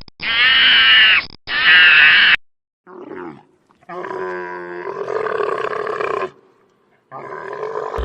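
Recorded animal calls: two loud, pitched cries of about a second each, then a short call and a longer call of about two seconds, with another starting near the end.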